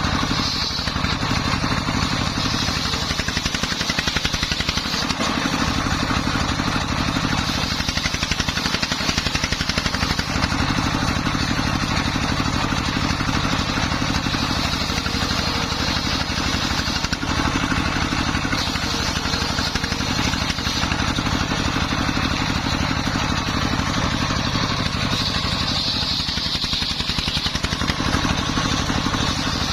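Dongfeng 24 hp single-cylinder diesel engine running steadily under load, driving a homemade circular saw, with a higher band of saw noise swelling at times, most strongly near the end.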